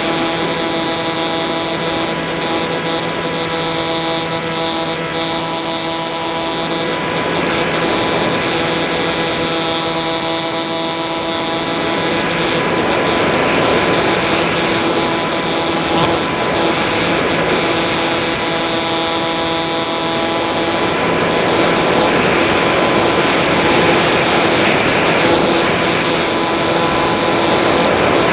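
Electric pusher motor and propeller of an Easy Star foam RC plane, heard through its onboard camera: a steady whine of several tones over a rush of wind. The whine fades back for a few seconds near the middle, then returns, and the wind noise grows louder in the second half.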